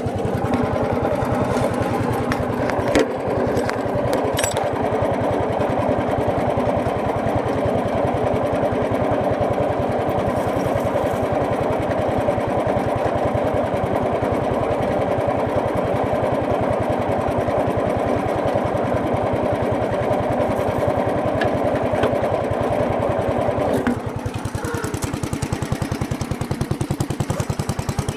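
Riding lawn tractor's small engine running steadily with a rapid, even firing beat; it eases off a little in level about 24 seconds in, and there is a brief knock about three seconds in.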